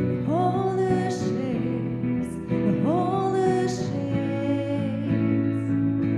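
A worship song played live on grand piano and acoustic guitar with a sung melody; the voice scoops up into long held notes twice.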